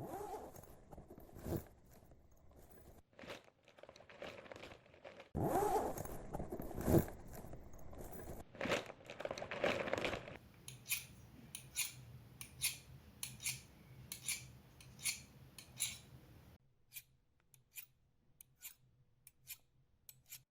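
A handled-object sound effect: first a stretch of crisp rustling and crunching broken by a few sharp strikes, then a regular run of short sharp clicks or snips, about two a second. The clicks grow sparser and fainter over the last few seconds.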